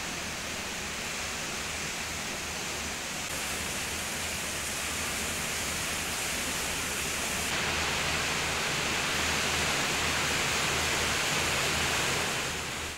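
Steady rushing water noise with a low rumble underneath, getting a little louder about halfway through.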